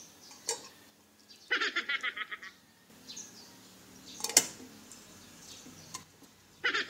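Small fish set by hand into an empty aluminium rice-cooker pot, giving a few sharp clicks, the loudest about four seconds in. A rapid chirping trill, about a second long, sounds twice: once a second and a half in and again near the end.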